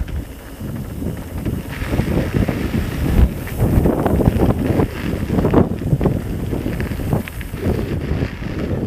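Wind buffeting the microphone: an irregular, gusting low rumble.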